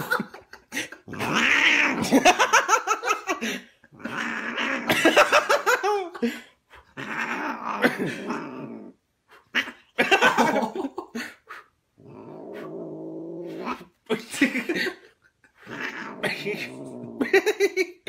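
Domestic cat yowling in a string of long, wavering calls while held on its back, with a man laughing in between.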